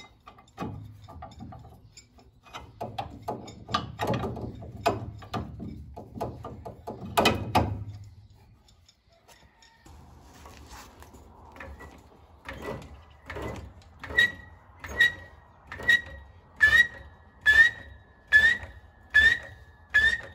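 Hand ratchet clicking and knocking irregularly as the U-bolt nuts are run down on the axle's leaf-spring mount. After a short pause about 8 s in, a hydraulic floor jack's handle is pumped about once a second, each stroke a thunk with a short high squeak.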